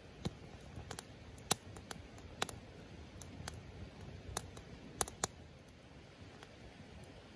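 Wood fire crackling in a fire pit: irregular sharp pops scattered over a faint steady hiss, the loudest two close together about five seconds in.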